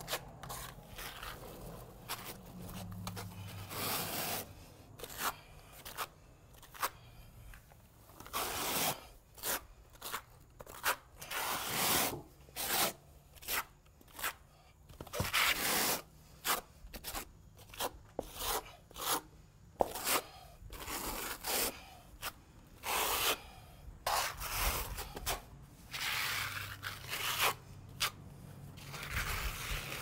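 Hand trowel scraping across wet cement-based concrete overlay, spreading and smoothing it in repeated short strokes, with a push broom being dragged over the fresh surface alongside.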